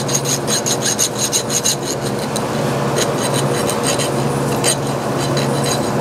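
A small hand file rasping back and forth over the edge of a small drilled metal part, deburring it. Quick strokes, about six a second, for the first two seconds, then slower, scattered strokes.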